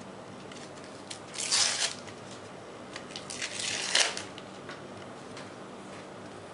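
Paper sticker packet being torn open by hand: two short tearing, crinkling rustles, about one and a half and four seconds in, with light clicks of the stickers being handled.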